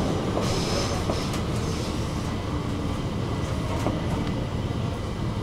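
Stockholm metro (tunnelbana) train running, heard from inside the carriage: a steady rumble of wheels on rails with a few sharp clicks from the track.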